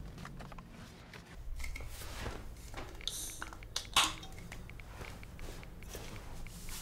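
Aluminium drinks can opened by its ring-pull: a short fizzing hiss about three seconds in and a sharp crack about a second later.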